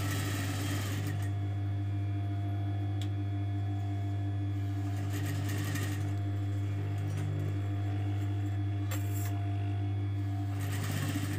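Sewing machine stitching in short runs over a steady low hum: it runs for about the first second, again around five seconds in, briefly near nine seconds, and once more near the end.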